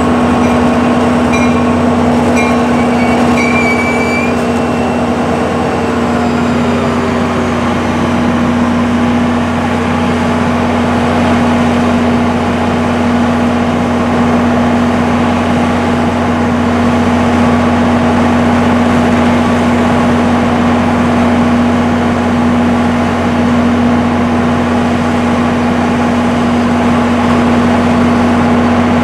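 EMD GP40PH-2B diesel locomotive coming to a stop, with short high brake squeals in the first few seconds and a falling whine that dies away about seven seconds in. It then stands with its diesel engine running with a loud, even hum.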